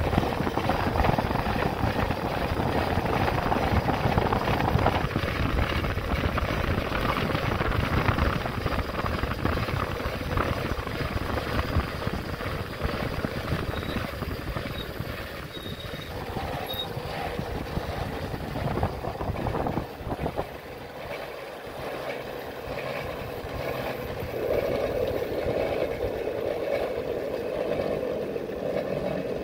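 Wind buffeting the microphone during a ride, a loud, gusty rumble that eases about twenty seconds in.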